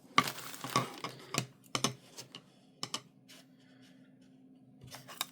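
A set of four smooth-finished coasters clicking and clacking as they are handled and stacked: a quick cluster of clacks in the first second, then scattered single clicks.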